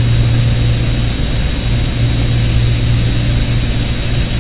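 Steady machine-like background hum and hiss: a strong constant low hum, an even hiss and a thin high whine, as from a running fan or similar machinery picked up by the microphone.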